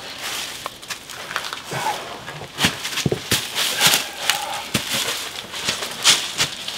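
Dry fallen leaves crunching and rustling under a person's hands, knees and boots as he climbs out of a crawl space and stands up, in irregular crackles.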